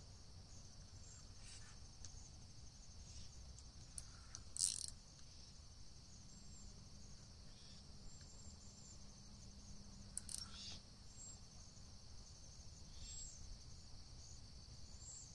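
Faint steady trilling of insects, with a few short bird chirps over it and a brief sharp noise about four and a half seconds in, and another just after ten seconds.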